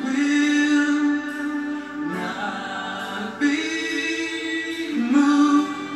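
Live band music with singing, the voice holding long notes that change pitch every second or two.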